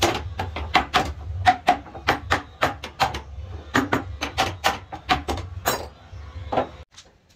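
Hand hammer knocking on a wooden workpiece on a workbench: a quick run of sharp blows, about three a second, that stops, then one last knock near the end. A low steady hum runs underneath and cuts off suddenly just after.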